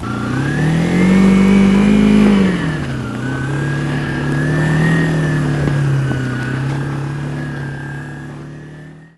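Kawasaki Ninja 250's parallel-twin engine revving. Its pitch climbs over the first two seconds and drops about two and a half seconds in, then holds fairly steady and fades toward the end.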